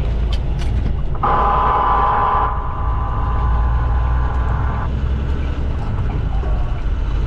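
A mobile phone sounding the Wireless Emergency Alert attention signal, a harsh two-tone test alert. It starts abruptly about a second in, drops in level after a second or so, and cuts off after a little under four seconds. Steady traffic rumble runs underneath.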